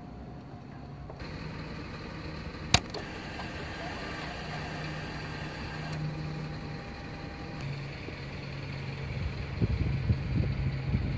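Ducati Panigale 959 being switched on: a sharp click, then a high whine for about three seconds as the bike primes. Near the end an irregular low rumble grows louder as the Superquadro L-twin turns over and starts.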